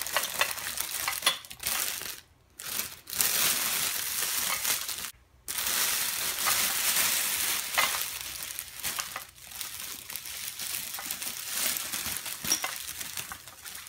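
Wrapping being crinkled and rustled by hand as a boxed mug is unpacked, a dense crackle with small clicks and two brief pauses, about two and five seconds in.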